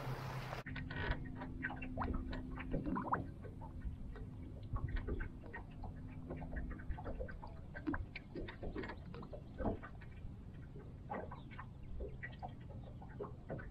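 Small waves lapping against the hull of a fishing boat sitting on the lake, making many irregular light ticks and slaps. A faint steady hum runs under it for the first half.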